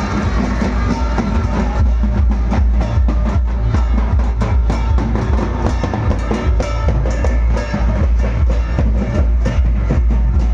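Loud music with a pounding drum kit and heavy bass drum on a steady beat.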